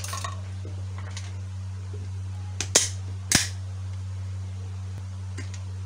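Two sharp clacks about half a second apart near the middle, with a lighter click at the start, as a steel cooking pot and a mixer-grinder jar are handled. A steady low hum runs underneath.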